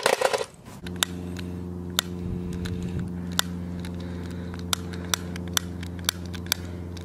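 A string of about nine sharp, irregularly spaced clicks from the trigger of a long-nosed butane utility lighter being pressed over and over, over a steady low hum. A brief clatter right at the start.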